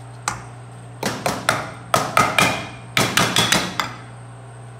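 Stainless steel measuring cup knocked against the rim of a glass measuring jug to shake out mayonnaise: about a dozen sharp, ringing clinks in quick clusters of three to five.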